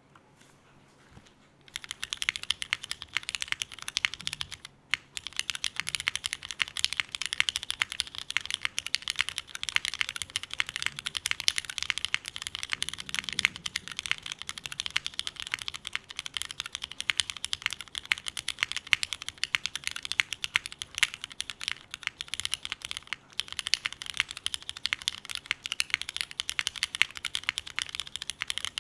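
Typing on a Snake60 R2 custom mechanical keyboard fitted with Cherry MX2A Black linear switches, unfoamed and O-ring mounted: rapid, continuous keystrokes that start about two seconds in, with one brief pause near five seconds.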